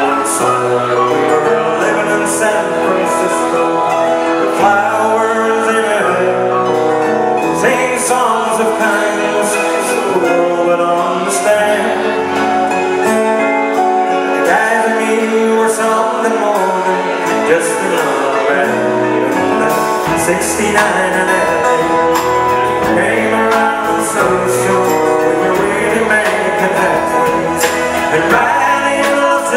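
Live band playing: a man singing over electric keyboard, bass guitar, guitar and drums, with cymbals struck throughout.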